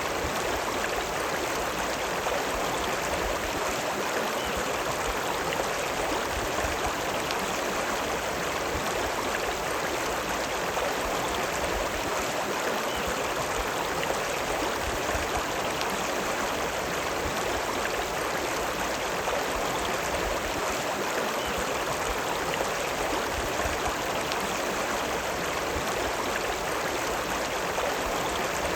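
The River Lune running: a steady, even rush of flowing water.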